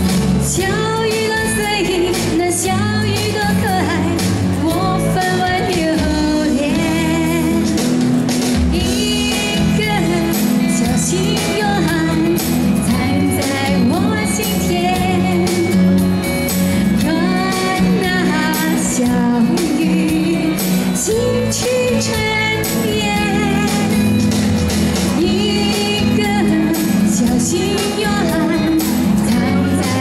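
A woman singing a pop song live, with instrumental accompaniment.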